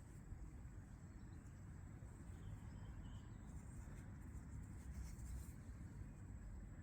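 Faint scratching and rustling over a steady low rumble.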